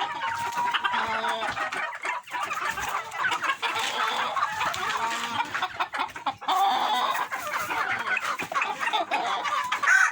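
Domestic chickens clucking continuously, several birds calling over one another.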